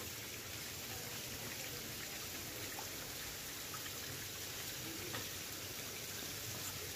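Steady watery pattering and fizzing, like light rain, with scattered faint ticks: crowded tengra catfish fry wriggling and splashing in shallow water in a hatchery tank.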